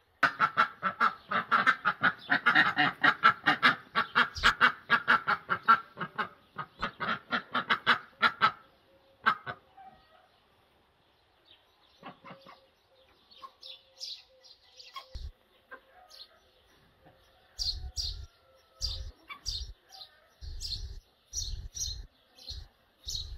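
White domestic ducks quacking loudly in a fast, steady run of calls for about eight seconds, then stopping. Later, small birds chirp in short repeated high notes, with low bumps beneath them.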